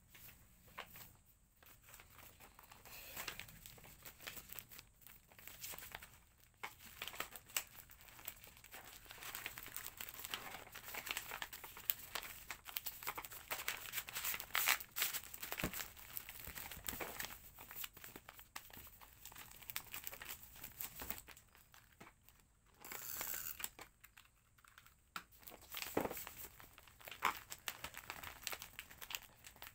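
Packaging material being handled by hand while packing orders: irregular rustling and crinkling with many small clicks, and a short tearing sound a little after the middle.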